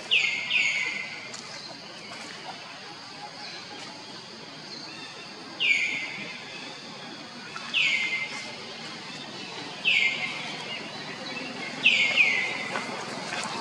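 High-pitched animal calls, each a short downward sweep: two in quick succession at the start, then after a pause one about every two seconds, with another quick pair near the end.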